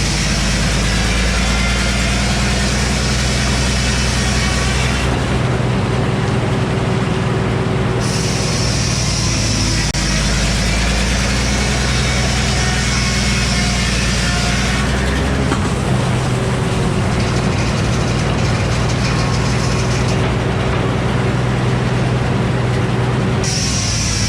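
An old Frick sawmill running: a steady low engine drone, with a high hiss over it that drops out about five seconds in, returns about three seconds later, and drops out and comes back once more near the end.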